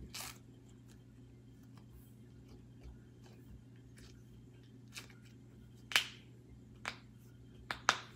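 Slime being stretched and squeezed by hand, letting off a few short sharp clicking pops, the loudest about six seconds in and two more close together near the end.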